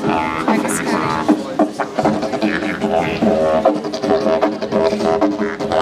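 Wooden didgeridoo played live: a continuous low drone with overtones that shift in a quick, rhythmic pattern.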